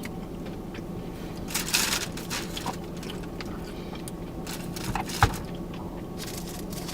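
Fast-food eating sounds: a brief rustle and crunch about a second and a half in, and a sharp click about five seconds in, over a steady low hum of the car cabin.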